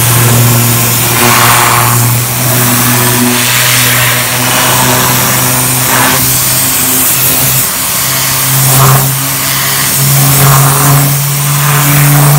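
Compressed air hissing hard from a Griot's Garage Air Pulse blow gun as it blasts water off a wet inner fender well, swelling louder every couple of seconds as the gun is moved around. A steady motor hum runs underneath.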